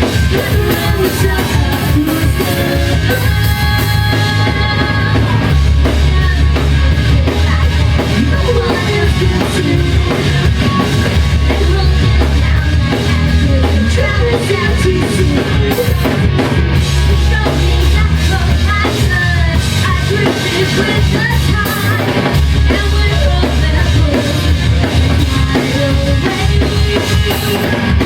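Live rock band playing loudly, with drum kit and heavy bass, heard through a recording at the gig.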